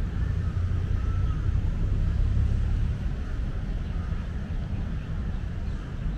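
A cat purring while being stroked: a steady low rumble.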